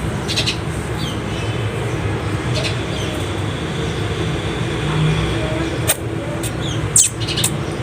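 Sparrows giving short, scattered chirps, a few in a quick cluster near the end, over a steady low background hum.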